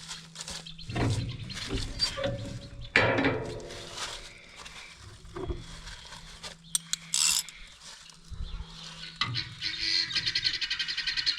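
Hand tools working on the wood chipper's belt-tensioner bolts: irregular metallic clanks and clicks, a brief squeal about three seconds in, and a run of rapid ratchet-like ticking near the end.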